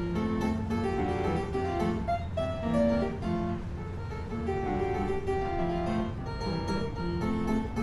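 Instrumental background music: a harpsichord-like keyboard playing a quick run of short plucked notes.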